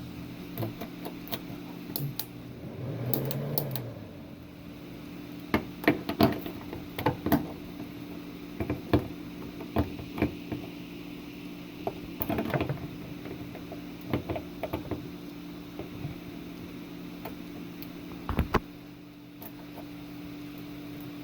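Irregular clicks and knocks of objects being handled, over a steady low electrical hum.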